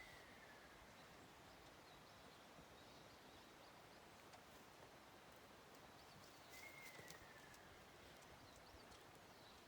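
Ruddy kingfisher calling: a faint, falling trilled call lasting about a second. The end of one call is heard at the very start and a full call comes about six and a half seconds in.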